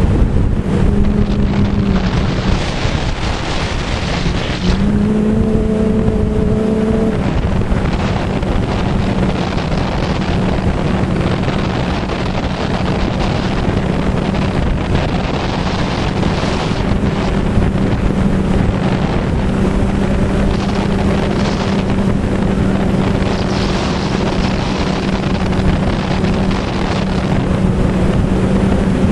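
Wind rushing over the microphone while travelling fast down a winding paved mountain road, with a steady low hum underneath.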